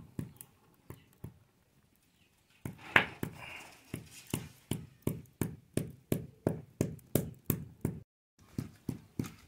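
Soft rhythmic knocking, about three knocks a second, stopping briefly and then coming back with a single sharper clink about three seconds in. It fits hands working at fish pieces on a steel plate.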